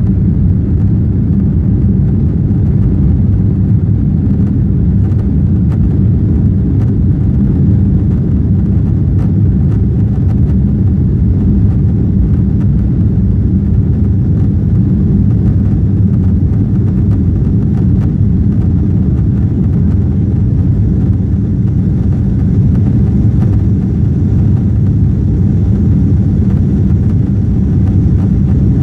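Boeing 777 cabin noise heard from a window seat while the jet climbs after take-off: a loud, steady, low rumble of the engines and rushing air, without change.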